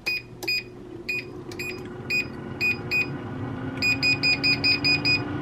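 Air fryer's touch control panel beeping once with each button press as the timer is set: spaced single beeps at first, then a quick run of about eight beeps near the end as the time is stepped down. Under the beeps the air fryer's fan runs with a steady hum.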